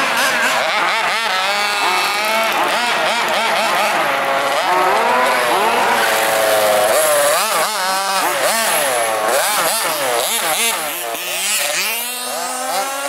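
Engines of large-scale radio-controlled buggies revving up and down as they are driven, more than one at once, the pitch swooping repeatedly. Near the end one engine settles into a steadier, slowly rising note.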